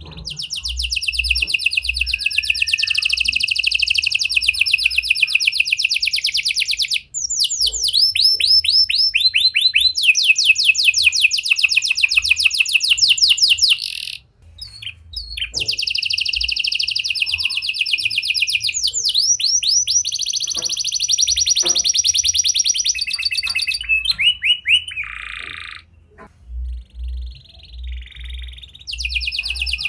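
Red-factor canary singing a long, loud song of very fast trills and rolls, with runs of falling whistled notes. There are brief pauses between phrases, and the last few seconds are broken into shorter notes.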